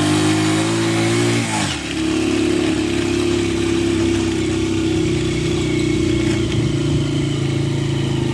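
A motor vehicle's engine running steadily. Its revs drop sharply about two seconds in, then hold even.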